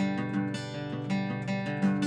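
Guitar being played: plucked and strummed notes struck a few times a second, ringing on over one another.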